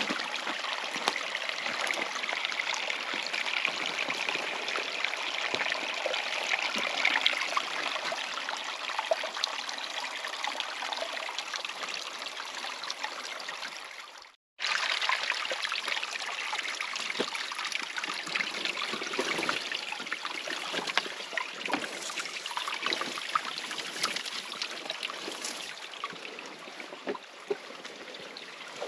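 Water running in a mountain stream: a steady rushing trickle with small splashes. It drops out for a moment about halfway through and then carries on.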